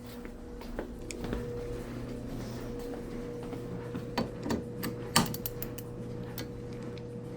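Scattered clicks and scrapes of a small screwdriver working on a fire alarm device, with one sharp click a little after five seconds in, over a steady low hum.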